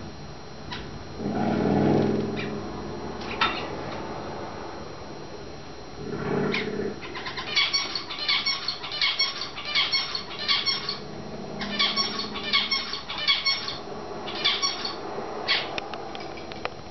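Young cut-throat finches calling: quick short high chirps repeating about two or three times a second, in runs that start about halfway through with brief pauses between them. A couple of low muffled sounds come earlier.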